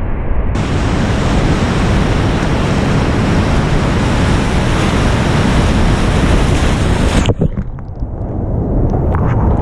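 Loud, steady rush of whitewater rapids around a kayak, with water and wind buffeting the microphone. Near the end the sound goes dull for about two seconds, then a few short splash clicks come through.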